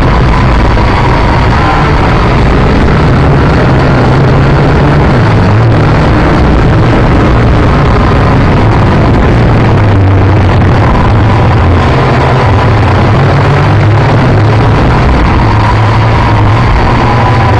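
Quadcopter's electric motors and propellers running, loud and close from a camera mounted on the craft, a steady drone whose pitch wavers up and down as the throttle changes.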